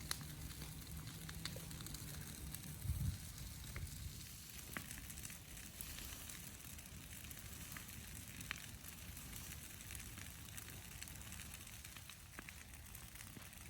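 Burning pile of tree branches crackling, with scattered sharp pops and one low thump about three seconds in.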